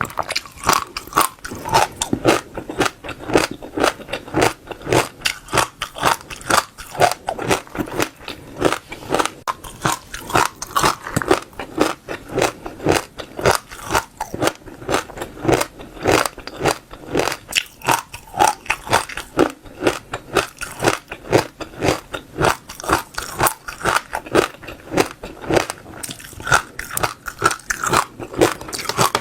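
Crunchy seeds being bitten and chewed close to the microphone, a steady run of crisp crunches about three a second.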